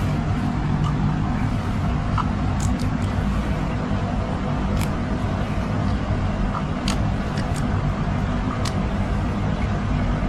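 A steady low rumble with a few small sharp clicks scattered through it.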